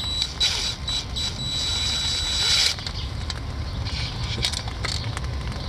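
A small power drill whining as it drives a speaker-mounting screw, starting and stopping a few times before running for about a second and a half and stopping under three seconds in, over a steady low hum.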